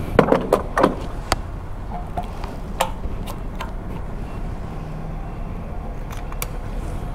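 Handling noises at a fuel pump: the nozzle being put back on the pump and a motorcycle's fuel-tank cap being pressed shut, heard as a few sharp clicks and knocks over a steady low rumble.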